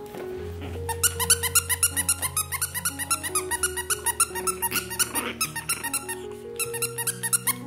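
Squeaky plush dog toy squeaking in quick repeated squeaks, several a second, starting about a second in with a short break near the end, over background music with long held notes.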